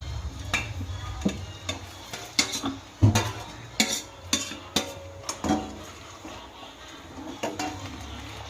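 Metal spoon stirring and scraping in a cooking pot: irregular clinks and knocks against the metal, over a steady low hum.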